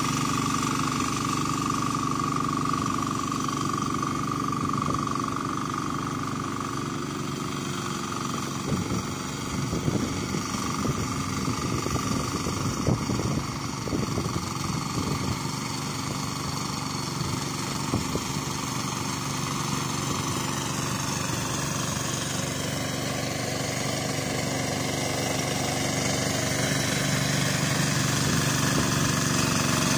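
Hand tractor (turtle tiller) powered by a 12 HP Yamma single-cylinder diesel engine, running steadily under load as it churns through deep paddy mud. Irregular knocks and clatters come for several seconds in the middle. It grows louder near the end as it comes closer.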